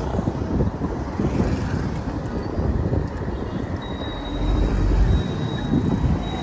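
Riding a motorcycle through city traffic: wind buffets the microphone in a gusty low rumble over engine and road noise, with a stronger gust about four to five seconds in. A thin, steady high whine sets in about four seconds in.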